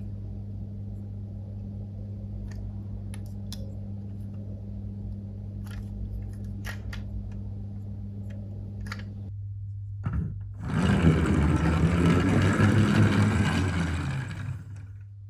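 Toy packaging being unboxed: a few faint clicks and taps over a steady low hum, then about ten seconds in a loud crinkling and rustling of the wrapping for several seconds that fades away near the end.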